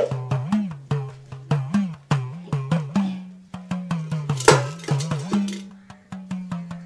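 Background music with a steady percussive beat of sharp knocks and a sliding bass line.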